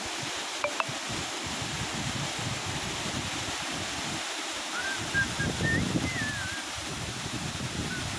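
Steady rush of waterfall water, with wind rumbling on the microphone. Two sharp clicks come under a second in, and a high warbling whistle about five seconds in.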